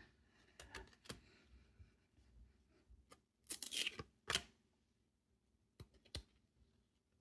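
Cardboard trading cards flipped through by hand, each slid off the front of the stack onto the back: a few soft flicks and slides, loudest in a short cluster about halfway through.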